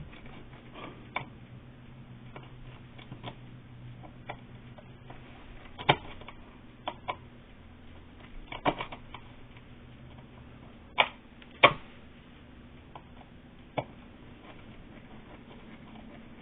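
Irregular sharp clicks and taps from handling an opened wall outlet and its wiring, about a dozen spread out, the loudest two close together near two-thirds of the way in. A faint low hum underneath fades out about halfway.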